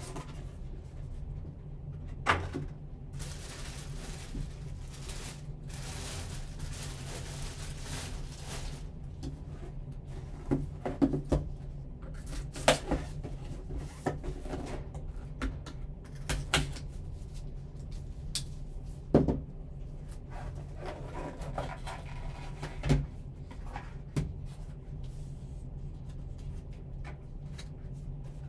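Cardboard box being handled and opened by hand: scattered knocks and taps, with stretches of scraping and rustling, over a steady low hum.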